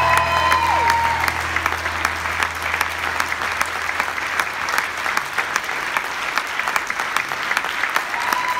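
Large audience applauding, with the last held notes of the music dying away in the first second or two.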